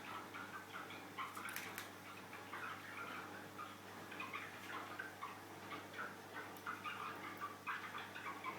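Border canary twittering softly in many short, irregular chirps, with a few sharp clicks about a second and a half in.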